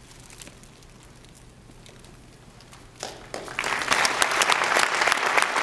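An audience applauding. Quiet room tone for the first three seconds, then many people start clapping and keep clapping loudly.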